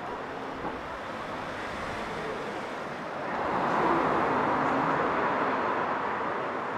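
A vehicle passing close by over steady street noise, swelling about three seconds in and slowly fading.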